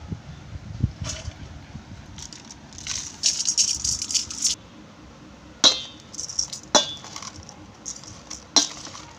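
Wet, washed rice being scraped out of a steel plate into a steel vessel with a steel spoon: a short grainy rush of rice about three seconds in. Then three sharp clinks of the spoon against the steel, with light scraping between them.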